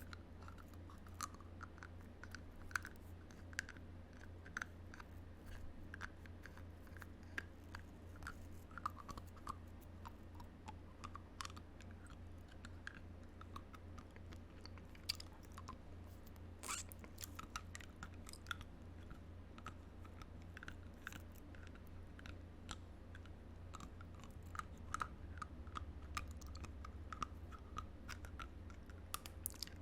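Close-up teeth biting and chewing on hard plastic, a dense, irregular run of small crunches and clicks, over a steady low hum.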